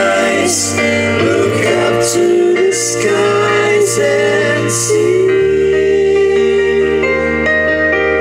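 A live band playing through PA speakers: electric guitars and a drum kit, with cymbal crashes about once a second and a voice singing over held chords.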